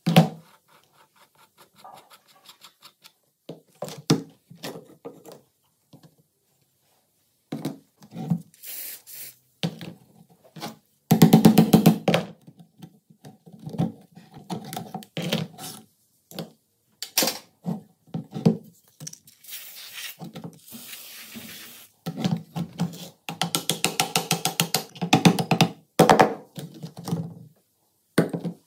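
Rusty steel gun parts handled and taken apart on a workbench: scattered clicks and knocks, with a few bouts of rapid metallic rattling and ringing as the recoil spring and rod are worked out of the receiver, and a short scrape.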